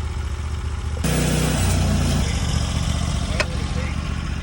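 Sawmill engine running steadily. About a second in comes a burst of louder rushing noise lasting about a second, and near the end a single sharp click.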